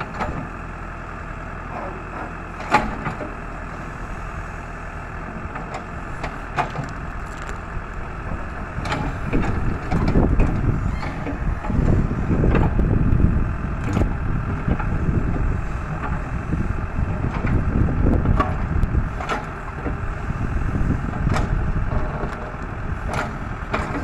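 Backhoe's diesel engine running as it digs, with scattered clanks and knocks from the bucket and arm, one sharp knock about three seconds in. The engine grows louder from about nine seconds in and eases off near the end.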